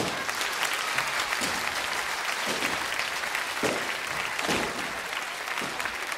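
Studio audience applauding: dense, steady clapping from a large crowd that starts suddenly as the song ends.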